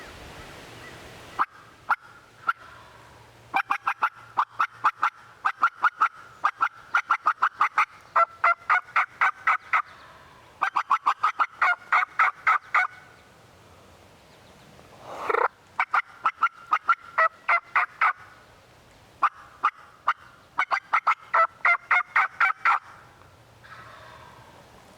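Wild turkey calls: rapid runs of sharp, loud yelping notes, about five a second, each run lasting a couple of seconds with short pauses between, and one longer sweeping note about fifteen seconds in.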